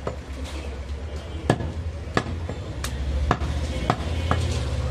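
Heavy butcher's knife chopping goat meat on a wooden log chopping block: about seven sharp knocks at irregular intervals, over a steady low background hum.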